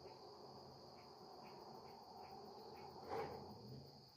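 Crickets and insects shrilling steadily in a high band, with faint chirps about twice a second. About three seconds in there is one short, louder noise.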